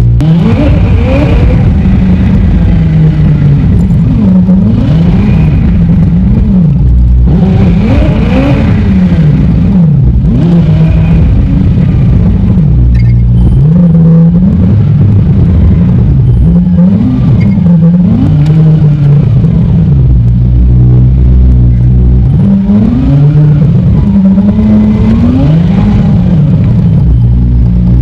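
McLaren 765LT's twin-turbo V8 heard from inside the cabin, revving up and falling back again and again as it accelerates and shifts through the gears. The recording is sped up three times with its pitch kept normal, so the rises and falls come in quick succession.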